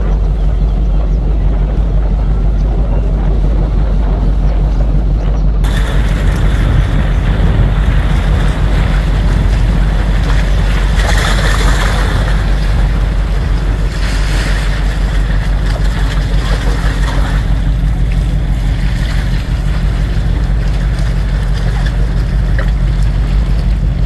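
Wind buffeting the microphone: a loud, steady low rumble. About six seconds in, a broad hiss of wind joins it and swells a couple of times.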